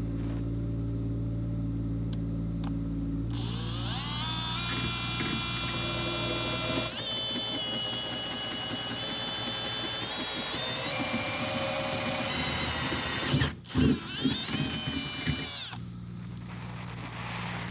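A handheld power drill cutting a hole in steel plate. The bit winds up, then chatters with a ringing, squealing whine that shifts in pitch as it cuts. It stops briefly about halfway, runs again for a couple of seconds, then stops. A steady low hum can be heard before and after the drilling.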